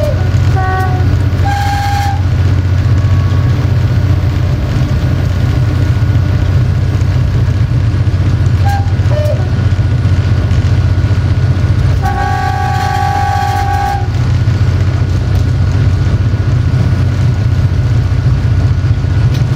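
Diesel locomotive heard from inside the cab, its engine and running gear giving a steady low drone. The air horn sounds two short toots in the first two seconds and one long blast of about two seconds about twelve seconds in.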